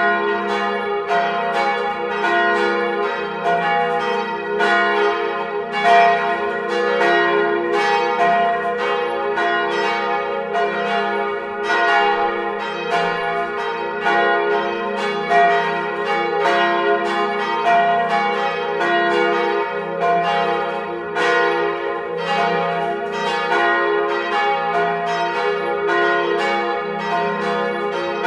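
Three 1948 Petit & Fritsen church bells, tuned F, A-flat and B-flat and hung on straight axles, swinging and ringing together in full peal, heard close up in the bell chamber. The clappers strike in an uneven, continuous tumble of about two to three strokes a second, each stroke ringing on into the next.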